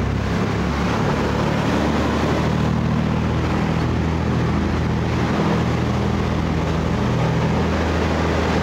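Charter fishing boat's engine running steadily under way: a low, even drone over a constant rush of noise.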